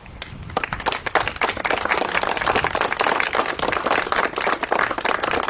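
A crowd applauding, the clapping starting about half a second in.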